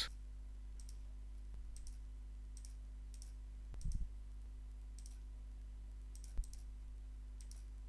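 Faint computer mouse clicks, about ten, spaced irregularly over a low steady hum, with a soft low thump about four seconds in.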